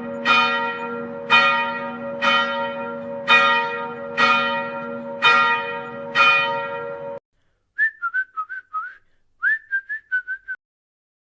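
A large bell tolling steadily, about one ringing stroke a second, which cuts off suddenly about seven seconds in. Then come two short runs of high chirping whistles, and after them silence.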